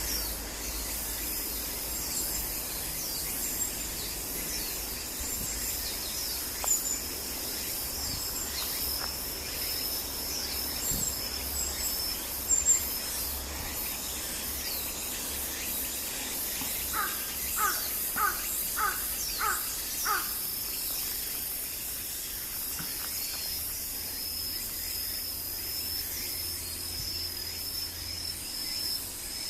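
A crow cawing, a quick run of six caws a little over halfway through, which the uploader takes for an earthquake-warning call. A few short high chirps from a smaller bird come earlier, over a steady high-pitched insect drone.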